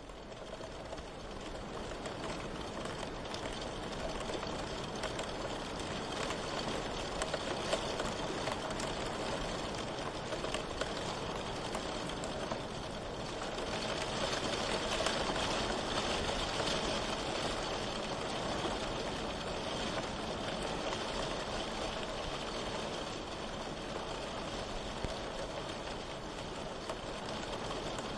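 Steady rain: a dense hiss of falling drops with fine patter, swelling up over the first couple of seconds and then holding even.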